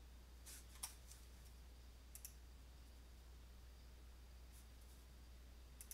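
Near silence over a low steady hum, broken by a few faint computer mouse clicks: a pair about half a second to a second in, another pair about two seconds in, and more near the end.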